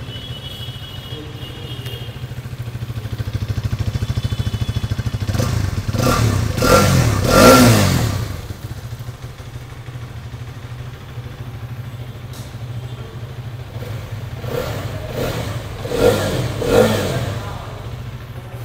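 Hero Karizma XMR 210's single-cylinder DOHC engine idling in neutral through its stock exhaust, revved up and back down. A run of revs builds in the middle and peaks, then two quick blips come about three-quarters of the way through before it settles back to idle.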